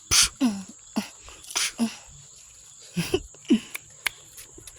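American bully puppies giving short yips and barks as they play, several brief calls that drop in pitch. A few sharp clicks come near the end.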